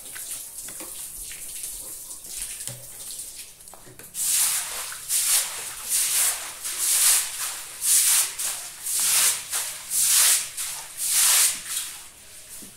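Water running from a garden hose onto a concrete floor, then from about four seconds in a broom scrubbing the wet concrete in regular swishing strokes, roughly three every two seconds, which are the loudest sound.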